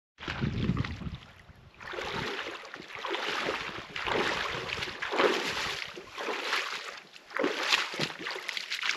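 Shallow water splashing and sloshing in repeated irregular bursts around a wading angler's legs while a hooked trout is played on a fly rod. A low rumble of wind on the microphone comes in the first second or so.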